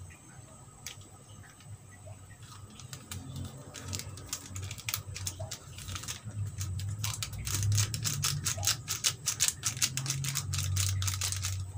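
Pot of mie ayam broth heating on a stove, with rapid crackling and popping clicks that grow denser and louder from about halfway through, over a low hum.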